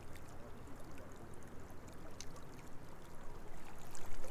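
Steady rush of fast-moving current flowing past the shore.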